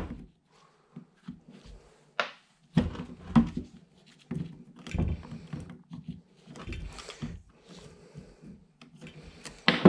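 Snap ring pliers working steel ball bearings out of the slip collar of a John Deere mower-deck drive shaft: irregular small metallic clicks and a few duller knocks as the shaft and collar are handled.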